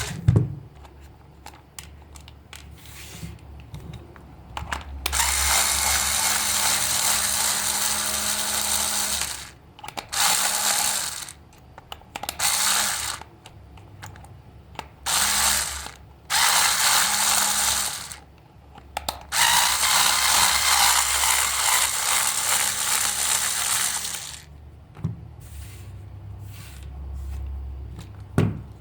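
A small geared motor running in repeated bursts with a rattling, grinding whir, stopping and starting about six times. The longest runs last about four and five seconds.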